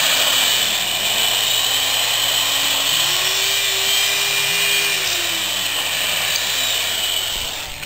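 Electric drill running steadily as it reams out a hole in a wooden board, with a high whine; the motor's pitch steps up about three seconds in, settles back about two seconds later, and the drill stops just before the end.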